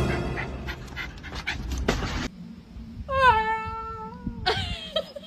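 Small dog yapping in short sharp calls, then a long high whine lasting about a second and a half that drops slightly in pitch, followed by short yelps near the end.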